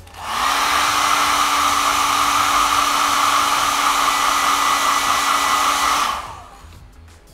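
Small handheld hair dryer switched on just after the start, running with a steady rushing blow and a low motor hum, then switched off about six seconds in and winding down. It is blowing warm air onto fabric to test whether an embroidery marker line disappears with heat.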